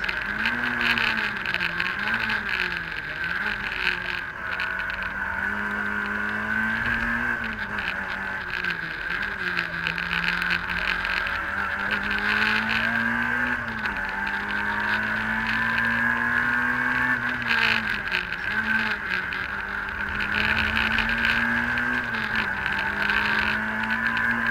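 Citroën AX GTi Group N rally car's four-cylinder engine heard from inside the cabin at full stage pace, its pitch climbing under acceleration and dropping sharply again and again as the driver changes gear and lifts for corners.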